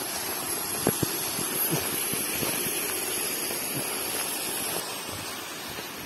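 Rushing water from a waterfall or stream, a steady noise, with two sharp knocks about a second in.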